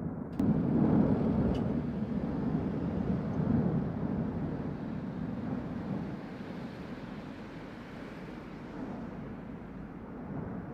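Volcanic eruption of the Cumbre Vieja: a deep, steady rumble with a sharp crack about half a second in, growing quieter after about six seconds.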